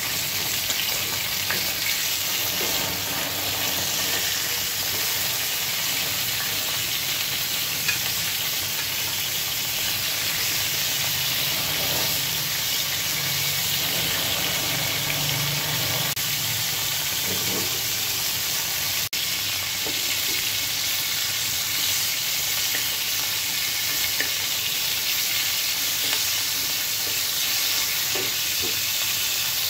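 Pigeon pieces rubbed with salt and turmeric sizzling steadily in hot oil in a frying pan. A metal spatula stirs and scrapes now and then.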